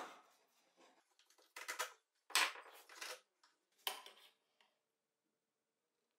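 A steel chisel and the parts of a wooden tool rest being handled and set in place: several short metallic clinks and scrapes over the first four seconds, the loudest about two seconds in.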